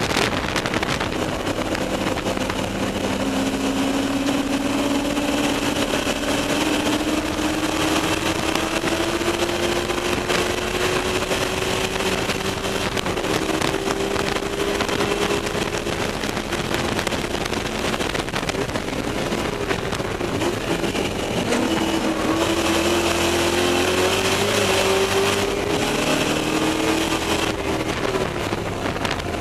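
Ford Mustang race car's V8 engine heard from inside the cabin, pulling hard in a long, slowly rising note, then a shorter rise and fall near the end, over steady wind and road noise.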